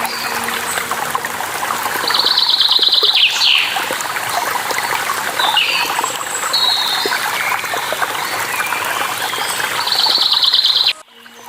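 Running water from a waterfall or stream with several birds singing over it: rapid trilled phrases and a few downward-slurred whistles. Just before the end the whole sound drops out abruptly and then fades back in.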